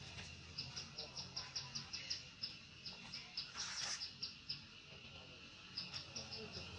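Insects chirping: short high chirps repeating in quick runs of several a second over a steady high drone, with a brief louder rush of noise about three and a half seconds in.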